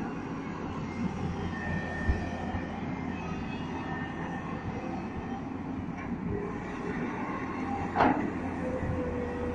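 Tata Hitachi EX210 excavator's diesel engine running steadily under load in power mode while it swings and works the boom, with faint whining tones. A single sharp clank about eight seconds in.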